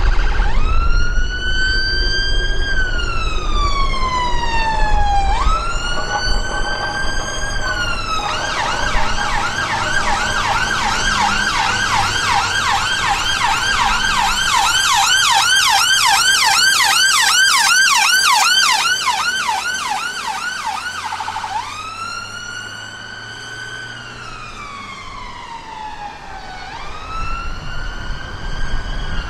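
NHS ambulance siren on a slow rising-and-falling wail, switching to a rapid yelp about eight seconds in and back to the wail about twenty-one seconds in. It grows fainter after the yelp as the ambulance passes and moves away.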